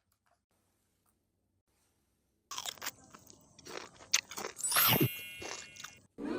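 Crunchy chewing and biting sound effect for eating cake, starting about two and a half seconds in. A brief high shimmering tone mixes in near the end.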